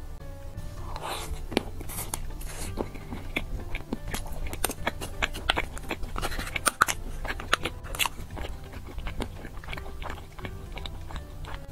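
Close-up crunching and chewing of a chocolate dessert with a crisp chocolate shell over a cake layer, with many sharp crackles through the bites.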